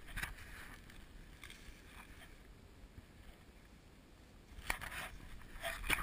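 Quiet outdoor hiss with a few soft rustles, then footsteps crunching in deep snow beginning near the end.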